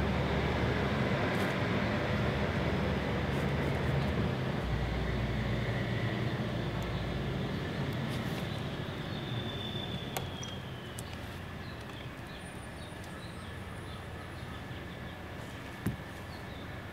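A motor vehicle's engine running with a low hum, slowly fading away. A faint falling whistle comes about halfway through, and a single sharp tap about a second before the end.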